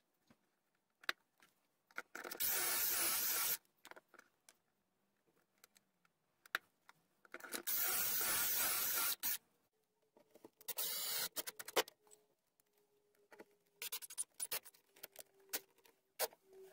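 Cordless drill boring pocket holes through a pocket-hole jig, two runs of about a second and a half each. Then shorter bursts as the drill drives screws into the frame's corners near the end.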